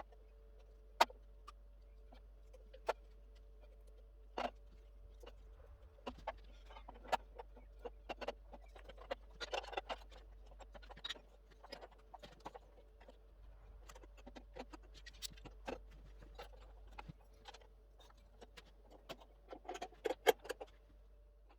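Scattered light knocks, clacks and taps of wooden strips and clamps being handled during a cutting-board glue-up, over a faint steady hum.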